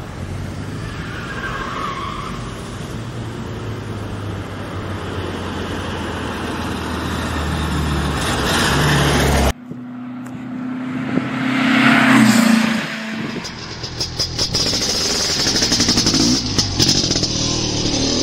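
An air-cooled VW Beetle engine running as the car drives, growing louder, then cut off abruptly about halfway through. After the cut, a different vehicle sound swells and fades with a rising and falling pitch.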